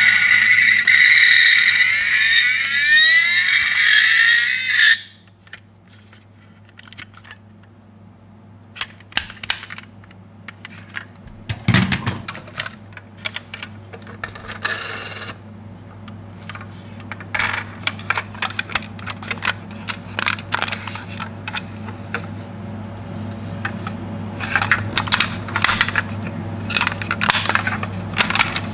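Toy ambulance's electronic siren sounding loudly, then cutting off suddenly about five seconds in. After it come scattered small clicks and clinks of the die-cast toy ambulances being handled, thicker near the end, over a faint low hum.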